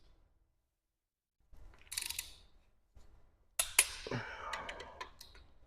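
Click-type torque wrench, set at 35 ft-lb, tightening a connecting-rod cap on a Mazda B2200 engine: a short breath, then a quick run of sharp metallic clicks from the ratchet and wrench past the halfway point, on the first pass toward the 51 ft-lb spec.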